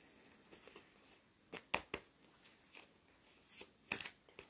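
Tarot cards being handled and shuffled, giving a few short, sharp card flicks and slaps: a cluster about one and a half seconds in and a few more near the end.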